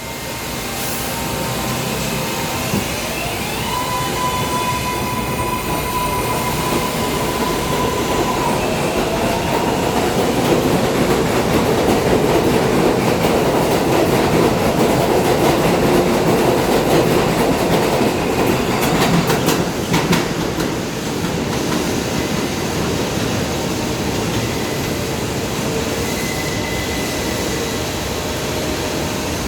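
New York City subway train moving through an elevated station: wheels rumbling and squealing on the rails, with a rising motor whine early on that levels off. The noise grows louder toward the middle as the cars pass, with a sharp clack about twenty seconds in.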